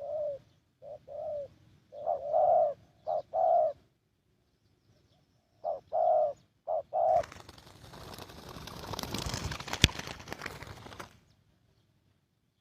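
Spotted dove cooing: a series of short, low coo notes in phrases, with a pause partway. It is followed by about four seconds of rustling noise with one sharp click in it, which stops near the end.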